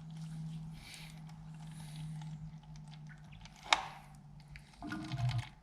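Engine coolant draining from a motorcycle's cooling system and trickling into a container, over a steady low hum, with one sharp click a little before four seconds in.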